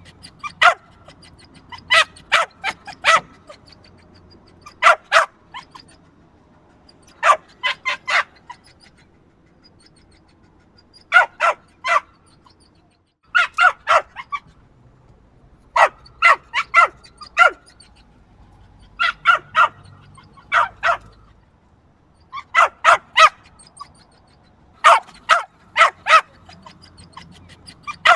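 Small yappy dog barking in quick clusters of two to five high barks, with pauses of a second or two between clusters.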